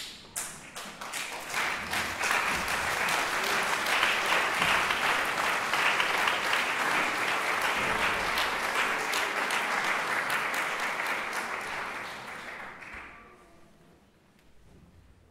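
Audience applauding. The clapping builds over the first two seconds, holds steady, then dies away about twelve to fourteen seconds in.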